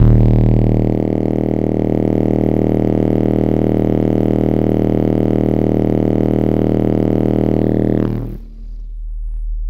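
Car audio subwoofers playing a 39 Hz test tone at about 145 dB with the windows down, a loud steady buzzing drone with many overtones that cuts off about eight seconds in, leaving a fainter low rumble.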